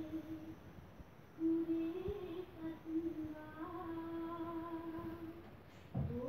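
A person humming a slow tune in long held notes, with a short pause about a second in and a brief low thump near the end.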